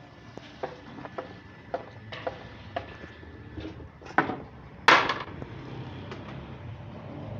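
A metal ladle knocking and scraping against a large aluminium cooking pot while stirring: a run of sharp knocks, then two louder, longer strikes about four and five seconds in.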